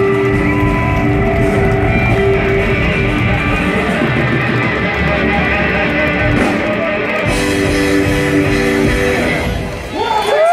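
Live blues-rock band playing loud through an outdoor PA, electric guitar to the fore with long held notes. Near the end the music drops away and the crowd starts cheering and whooping.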